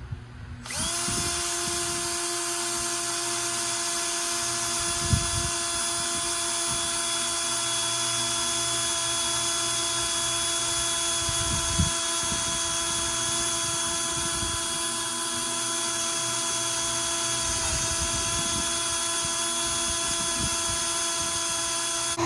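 Electric drill starting about a second in and then running at a steady speed, boring out holes in a wooden framing board so it fits over the van's existing rivet heads. Two brief knocks come through partway.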